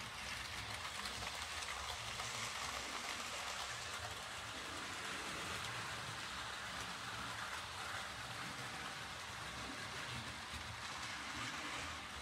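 OO gauge model trains running round the layout: a steady noise of wheels on the rails and the locomotives' motors.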